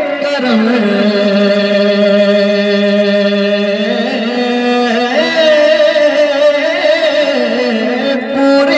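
A man singing an Urdu devotional kalam (naat) into a microphone, holding one long steady note for about three seconds and then moving into sliding, ornamented phrases.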